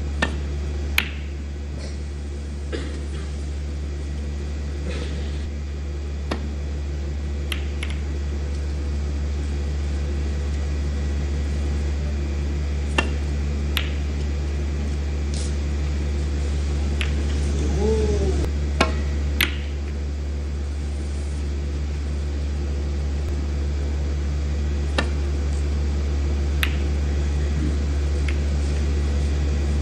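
Snooker balls clicking: sharp, isolated knocks of cue on cue ball and balls striking each other, spread every few seconds over a steady low hum.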